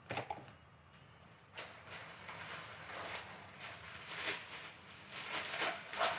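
Clear plastic bag crinkling and rustling as it is handled and opened, starting about one and a half seconds in, in uneven surges.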